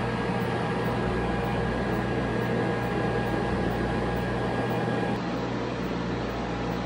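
Steady mechanical hum and fan noise of an Apogee Elite Plus laser hair-removal machine running during a treatment, with a few constant tones over an even rush of air.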